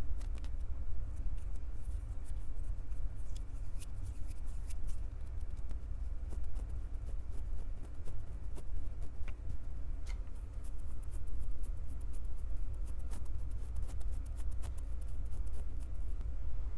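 Hands gripping, squeezing and rubbing a Tascam recorder close to its built-in microphones: a steady low handling rumble under scattered crackles and clicks, which turn into a dense run of crackling about ten seconds in and stop just before the end.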